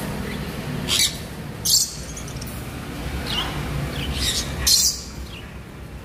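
Caged parrots giving short, shrill screeches, three sharp calls about a second, a second and a half, and nearly five seconds in, over a low steady background hum.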